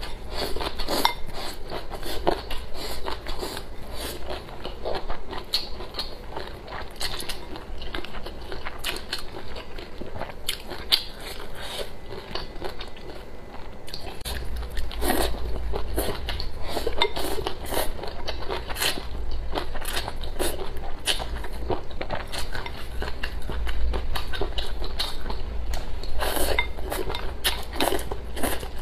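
Close-miked eating: wet chewing and slurping of mouthfuls of cold shredded-kelp salad with rice, with wooden chopsticks clicking and scraping against the rice bowl.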